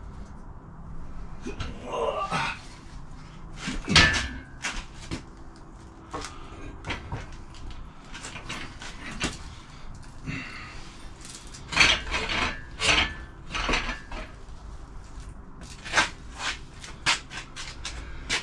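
Irregular metal clanks and knocks, with a few louder bangs, as a heavy engine is shifted and lined up on an engine stand.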